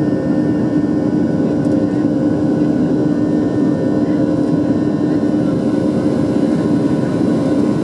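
Cabin noise of a Boeing 737-600 climbing out after takeoff: its CFM56-7B turbofan engines running steadily, a loud, even drone with a held hum.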